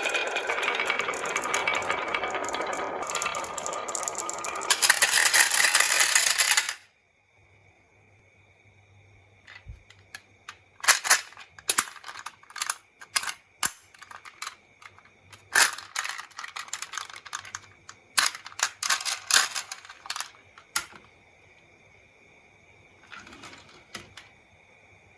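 Marbles rolling and clattering along a wooden marble run: a dense, continuous rattle that cuts off abruptly about seven seconds in, then a run of sharp irregular clicks and clacks as marbles knock against the track pieces, with a faint steady high whine underneath.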